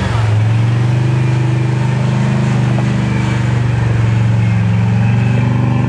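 Engine of a Toyota-based rock crawler running steadily at low revs as it crawls over boulders, with a slight rise in revs near the end.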